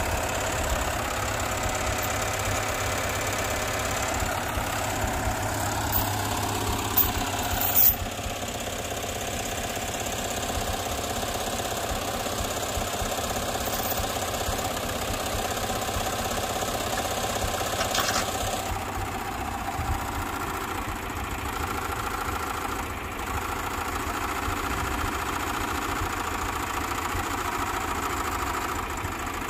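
A motor vehicle's engine running steadily, its pitch falling for a few seconds early on, with a few sharp clicks around seven or eight seconds in and another near the middle.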